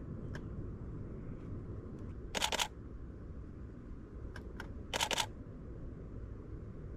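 Canon 5D Mark III DSLR shutter firing two short bursts of rapid clicks, about two and a half seconds apart, with a few faint single clicks between, over a steady low rumble.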